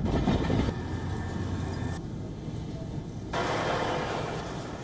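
Heavy military vehicles running, heard through abrupt cuts between clips. A low engine rumble fills the first two seconds. From about three seconds in, a heavy military truck drives across a field, with a rougher, noisier engine and tyre sound.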